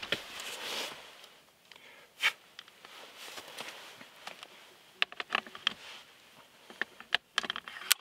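Handling noise from camera gear and clothing: a rustle in the first second, then scattered clicks, knocks and short scrapes as the camera and long lens are moved and set in place.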